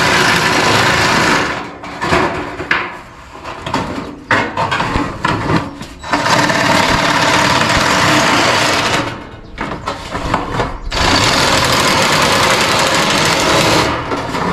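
Cordless power shear cutting through a ribbed steel roofing panel. It runs with a rapid buzz in three long spells, with shorter stop-start bursts between them as the cut goes on.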